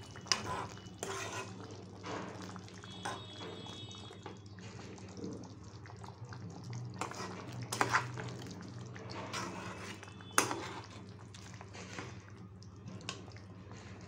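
A spatula stirring thick chickpea curry in a non-stick pan, with scattered knocks and scrapes against the pan and liquid sounds from the gravy. A steady low hum runs underneath.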